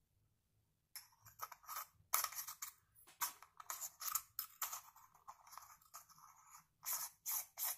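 CNC Q5 tattoo pen being twisted and fitted together by hand: a quick irregular run of short scraping clicks of plastic and metal parts, starting about a second in.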